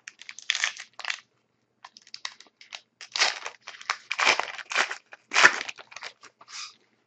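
Trading-card pack wrapper crinkling as it is torn open and crumpled, in a run of irregular crackles with a few louder bursts.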